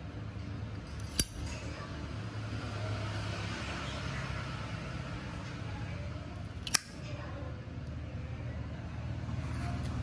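Zippo windproof lighter's hinged metal lid clicking open about a second in, then snapping shut with a second sharp click near the middle, over a steady low hum.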